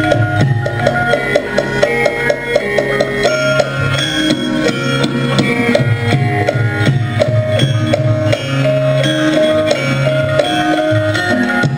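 Javanese gamelan music: metallophones play a quick stepping melody of short struck notes over hand-drum strokes.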